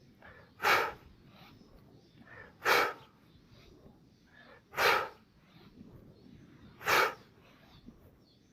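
A person breathing hard while doing push-ups: four sharp, forceful exhales about two seconds apart, one on each rep, each preceded by a softer inhale.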